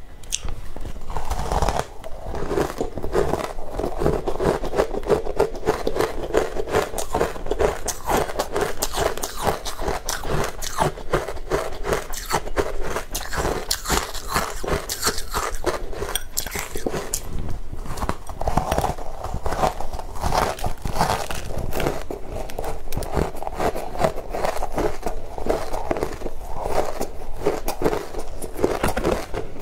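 Dense, continuous crunching and chewing of powdery shaved ice coated in matcha powder, bite after bite with no pause.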